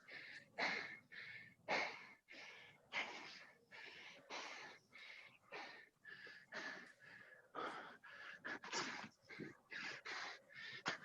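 Hard, rapid breathing from the exertion of doing burpees: a steady run of loud breaths, roughly one every half-second to second.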